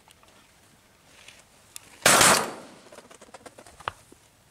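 A single shotgun shot about two seconds in: one sharp, loud blast that dies away over about half a second. A few faint clicks are heard before and after it.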